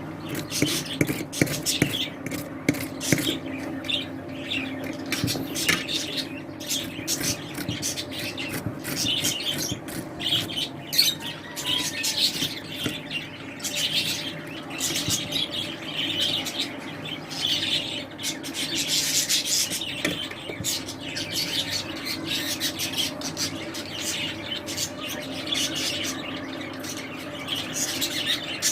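Beetroot being grated by hand on a grater, one rasping stroke after another, while small pet birds chirp throughout.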